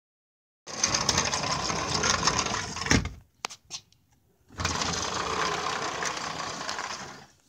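Aluminium sliding patio door rolling along its track on worn rollers with a loud grinding rattle. It slides one way and stops with a heavy thump and a couple of clicks, then grinds back the other way after a short pause. It is the noise of rollers and track that need replacing and cleaning.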